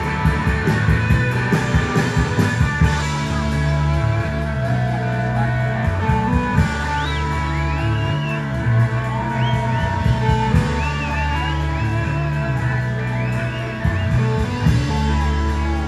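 Live rock band playing an instrumental passage: electric guitar and bass guitar over drums, with high bending guitar notes coming in from about six seconds in.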